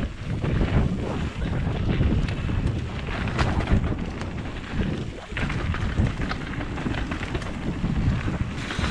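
Wind buffeting an action camera's microphone as a mountain bike rolls fast down a dirt forest trail, with the rumble of tyres on the ground and frequent clicks and knocks from the bike jolting over bumps.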